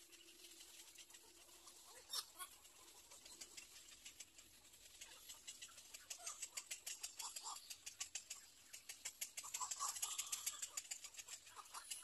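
Little egret chicks in the nest giving faint, rapid clicking chatter with short peeps mixed in, growing busier and louder from about halfway through.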